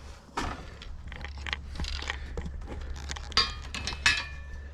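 Metal being handled as a steel brace and clamps are set in place: scattered knocks and clicks, with two ringing metallic clinks about three and a half and four seconds in.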